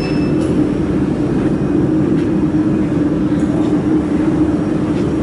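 Steady, loud hum of laser welding equipment running, with a strong low drone. A short high beep sounds right at the start.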